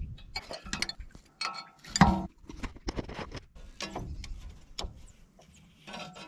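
Hand wrench working bolts at the front of an engine block: irregular metallic clicks and clinks, with one sharper clank about two seconds in.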